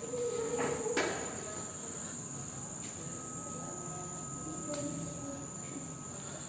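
A steady high-pitched whine, like a cricket's trill, runs without a break over faint room murmur, with a sharp click about a second in and another near five seconds.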